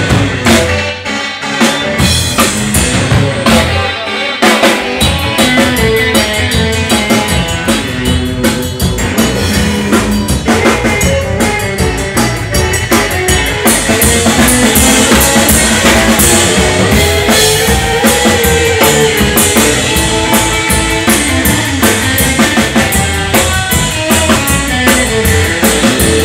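Live rock band playing an instrumental break between verses: a steady drum-kit beat with bass drum, and guitar over it, with a melodic line rising and falling about two-thirds of the way through.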